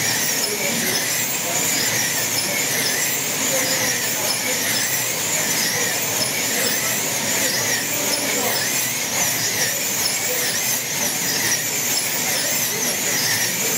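Several wing slot cars racing round the track together, their electric motors making a steady high-pitched whine that warbles up and down without a break.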